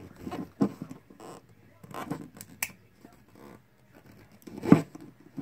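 Irregular clicks, scrapes and knocks of a tool working at a Master combination padlock as it is forced, with one louder knock near the end.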